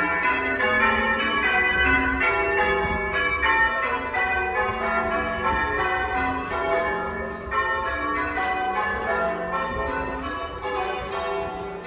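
A ring of church bells pealing: bells of different pitch struck one after another in a steady run, several strokes a second, each note ringing on into the next.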